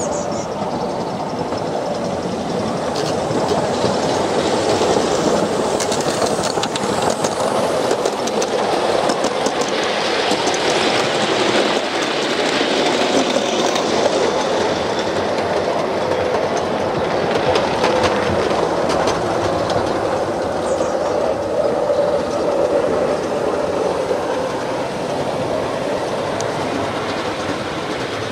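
Gauge 1 model train running along the track, a steady running noise of wheels on rail with scattered sharp clicks, thickest in the first half.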